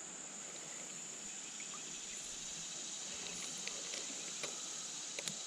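Insects calling in a steady high-pitched chorus, with a few faint clicks in the second half.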